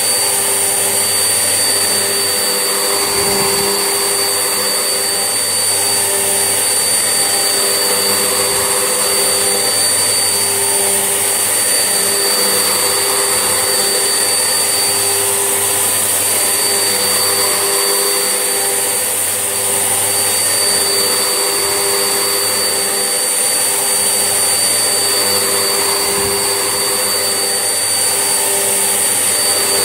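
Vax Essentials vacuum cleaner running steadily while hoovering, a continuous motor hum with a high whine. There are a few brief low bumps along the way.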